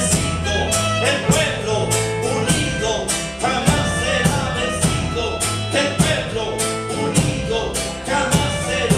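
A Latin American song played by a small band: singing over acoustic guitar and hand percussion, with a steady beat.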